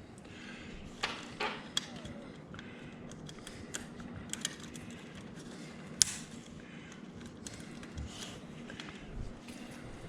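Vertical blind slats being handled and pushed up into their plastic carrier clips on the headrail: a few scattered light plastic clicks and knocks, the sharpest about six seconds in.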